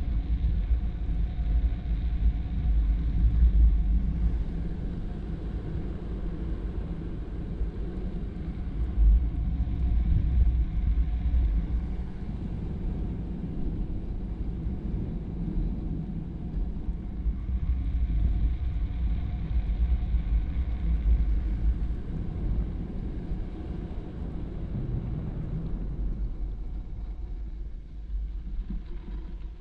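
Drift trike coasting fast down a wet road: a steady rush of wind and road rumble from the wheels, with no engine. The rumble eases near the end as the trike slows.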